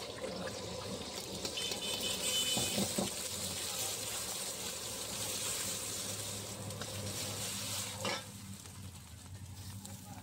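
Eggs sizzling in hot oil in a wok, stirred and broken up with a metal ladle that knocks and scrapes against the pan. The sizzle gets quieter about eight seconds in.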